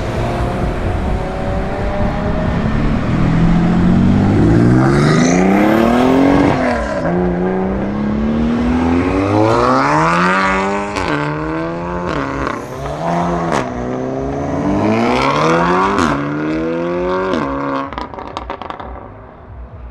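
Sports car exhausts accelerating hard through the gears: the engine note climbs in long rising sweeps and drops sharply at each upshift, several times over. Sharp cracks from the exhaust come in the second half.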